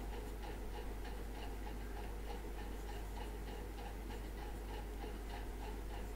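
Faint, quick, even ticking, about three ticks a second, over a steady low electrical hum.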